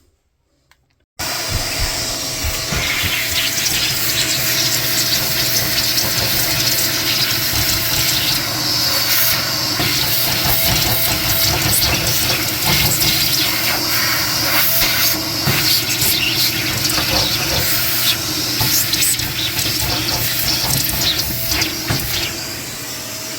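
Vacuum cleaner switched on about a second in and running steadily, sucking built-up lint and debris out of an electric dryer's cabinet: rushing air with a steady tone under it and small clicks and rattles of debris.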